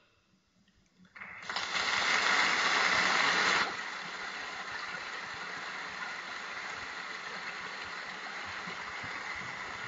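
Audience applause breaking out about a second in, loudest for the first couple of seconds, then settling into steady clapping.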